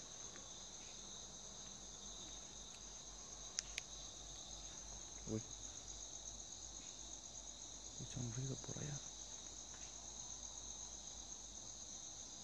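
Crickets trilling steadily at a high pitch. There are two faint clicks about three and a half seconds in, and a brief low murmur a little past the middle.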